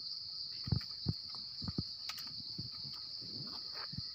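Steady, high-pitched drone of insects, with a few short light knocks and scrapes from a knife blade cleaning the base of a freshly picked wild mushroom.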